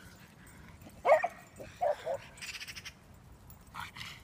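Dog barking: one loud bark about a second in, then two shorter barks close together just under a second later.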